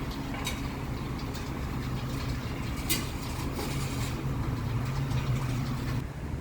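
A car engine idling steadily, with a few short clicks or knocks over it.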